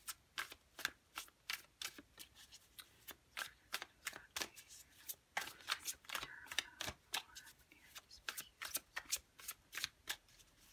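A Gilded Tarot deck being shuffled by hand: a continuous, irregular run of quick card clicks and slaps, a few each second.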